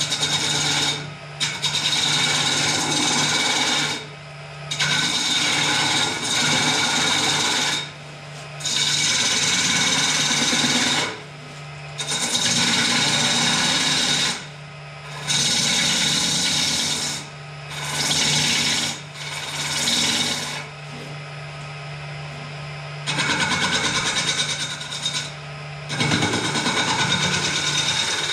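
Wood lathe running while a hand-held turning tool cuts a large spinning wooden bowl blank in about ten passes of one to three seconds, each a loud scrape of shavings coming off. The lathe's steady motor hum fills the short gaps between passes.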